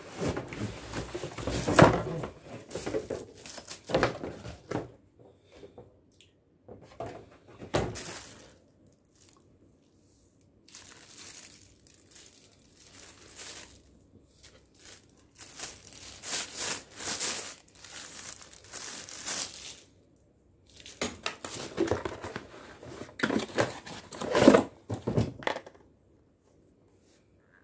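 Hands handling plastic and cardboard packaging, rustling in irregular spells broken by short pauses, with a few sharper, louder crackles.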